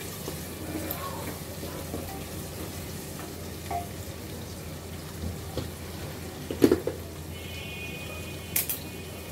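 Sliced onions frying in oil in a pressure cooker, a steady sizzle as they soften. A short knock about two-thirds of the way through and a couple of sharp clicks near the end.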